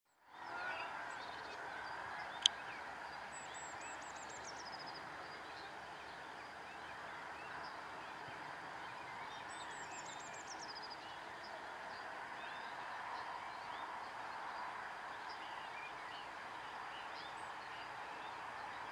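Outdoor chorus of many birds chirping, with one songbird repeating a short trilled song that falls in pitch, heard twice about six seconds apart. A single sharp click sounds about two and a half seconds in.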